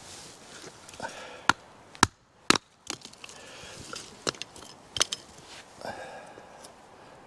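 A bushcraft knife is struck into a short piece of wood resting on a tree stump, batoned with a wooden club. The sound is a series of sharp wooden knocks, the loudest three within about a second of each other, then a few more near the end, with rustling handling in between.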